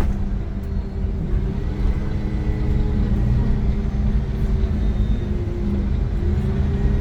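Iveco Crossway LE 12 bus with its Cursor 9 diesel engine and ZF gearbox running under way: a steady low rumble with a constant hum and a fainter, slightly wavering tone above it.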